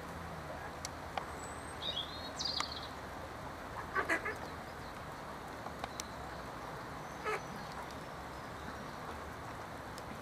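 Mallard ducks calling as several drakes scuffle on top of a female: a quick run of short calls about four seconds in and a single call just past seven seconds, over steady outdoor background noise.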